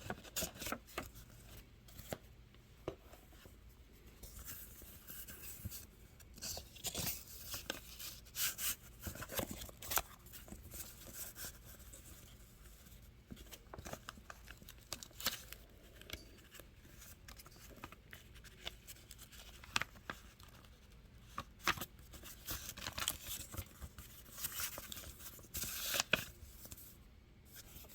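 Paper greeting cards and envelopes rustling and crinkling as they are handled, in short scattered strokes with quieter stretches between.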